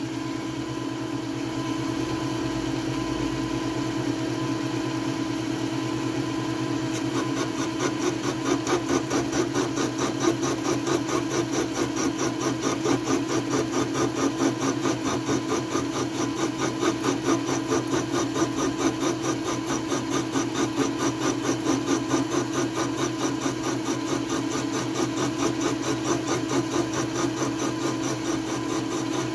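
Milling machine running with an end mill cutting the wall of a bored hole in a metal plate, a light relief cut. A steady machine hum, joined about seven seconds in by a fast, rhythmic chatter of the cutter in the metal.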